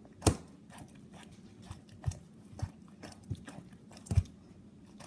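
A dog chewing a crunchy cookie treat, with irregular sharp crunches about one or two a second.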